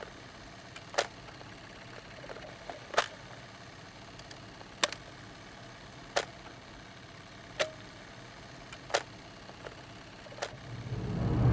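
About six sharp single clicks, spaced a second or two apart, over a faint steady hiss. A low swell builds near the end.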